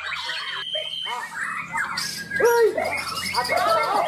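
White-crowned shama (Murai Borneo) singing in a cage: a fast, varied run of whistled notes that arch up and down, the loudest about halfway through.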